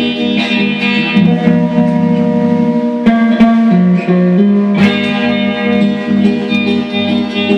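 Instrumental passage of a song: plucked guitar notes ringing over sustained chords, with no singing.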